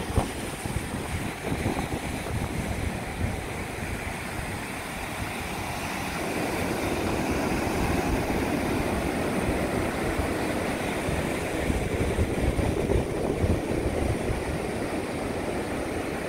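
Ocean surf washing on the beach under wind buffeting the microphone; the surf wash grows fuller and a little louder about six seconds in.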